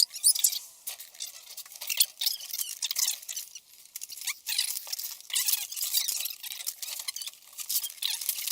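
Hands working a bicycle chain and small metal parts: irregular clicks, scrapes and short squeaks, with no steady rhythm.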